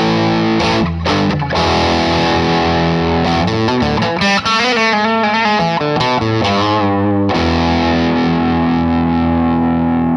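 1963 Gibson Les Paul/SG electric guitar played through a distorted amp: strummed chords, a short lead phrase with wavering, vibratoed notes in the middle, then a chord left to ring out near the end.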